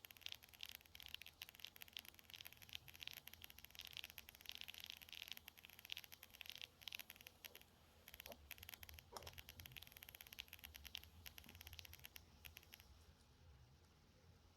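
Faint, quick scratching and clicking of small hand tools on a tiny alarm clock movement while working the little nut that holds the hands, falling quiet near the end.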